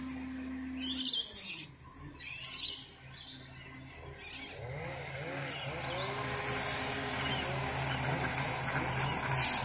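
Birds call twice in the first few seconds. Then a heavy truck's engine grows steadily louder as it approaches, with a steady low hum and a high steady whine alongside it.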